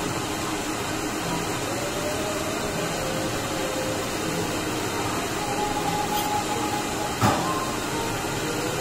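Steady restaurant background noise, an even hiss and hum, with faint distant voices and one sharp click about seven seconds in.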